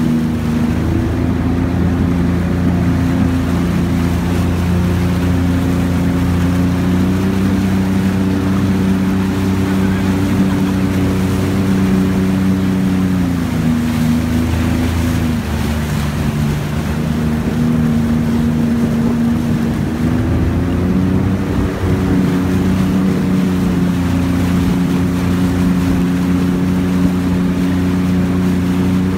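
Jet ski engine running steadily at cruising speed over rushing water, with some wind on the microphone. The engine note eases off about halfway through and picks back up several seconds later.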